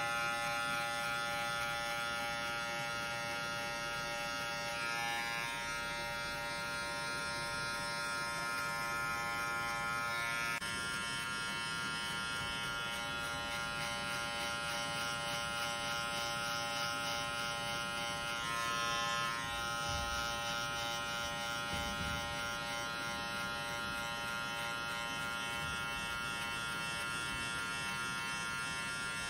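Cordless electric hair clipper with a guard comb buzzing steadily as it cuts short hair at the back of the neck, its tone shifting slightly a few times as the blade meets the hair.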